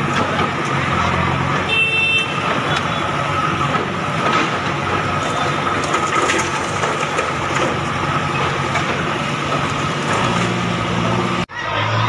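JCB backhoe loader's diesel engine running under load as its front bucket pushes against a building's concrete front, with a dense clatter of work noise. A short beep sounds about two seconds in.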